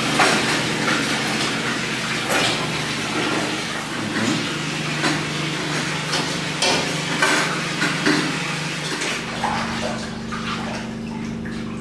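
Irregular knocks and clatter of bowls, tubs and utensils being handled during cheese-making, over a steady low hum that shifts pitch twice.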